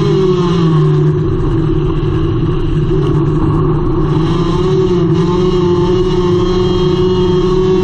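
Front-wheel-drive four-cylinder Hornet dirt race car's engine running hard under racing load, heard loud from inside the cockpit. Its pitch holds fairly steady with small rises and dips as the driver works the throttle.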